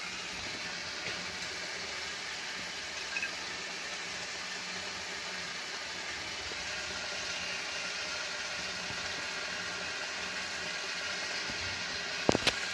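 Carrot halwa sizzling in ghee in a steel kadai, a steady hiss that grows slightly louder. A few sharp knocks near the end.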